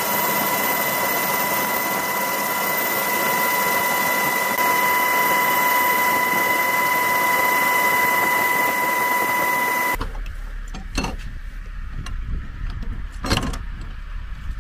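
UH-60 Black Hawk helicopter cabin noise in flight: a loud steady roar with a high steady whine. About ten seconds in it cuts to a much quieter low rumble with a couple of sharp knocks.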